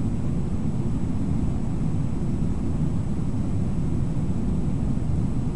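Steady low rumble of a fast-flowing river running over rapids.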